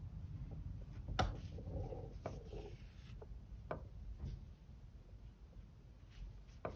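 Faint rubbing and a few sharp ticks as hands work a needle and thread through a strip of wool felt, pulling each blanket stitch through.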